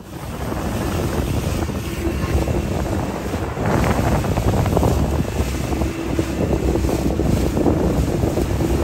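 Wind buffeting the microphone over a boat's motor running steadily and water washing past the hull. The sound fades in at the start and grows a little louder a few seconds in.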